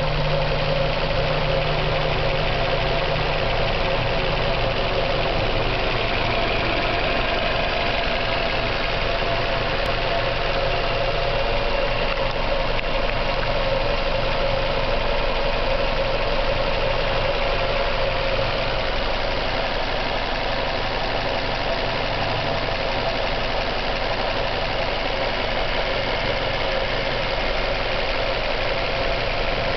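A car engine idling steadily at operating temperature, with a knock running through the idle.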